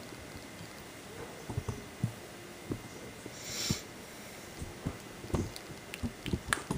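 Scattered faint clicks and knocks, as of handling, with a brief hissing rustle about three and a half seconds in.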